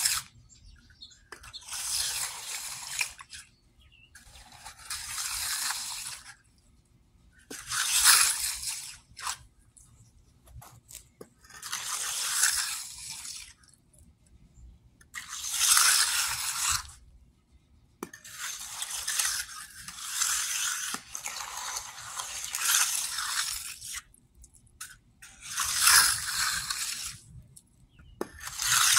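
Steel hand trowel being drawn over wet, freshly poured concrete to smooth and finish the slab: long wet scraping strokes, about one every three seconds.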